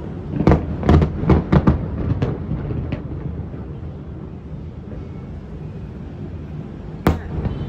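Fireworks bursting: a quick run of about seven sharp bangs in the first two seconds over a steady low rumble, then one loud crack about seven seconds in.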